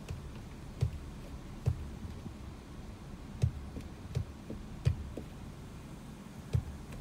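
Gusty wind buffeting a phone microphone as a low, steady rumble, broken by about six sharp, irregular thumps.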